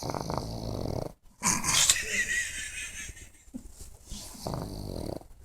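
Pug snoring: a low, rattling snore, then a louder, hissier breath about a second and a half in, and another rattling snore near the end.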